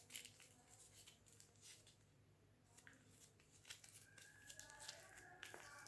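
Faint crinkling and tearing of a soap bar's paper or plastic wrapper being opened by hand, a scatter of small crackles and clicks.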